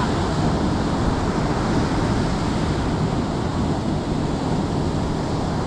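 Ocean surf breaking and washing ashore, with steady wind noise on the microphone.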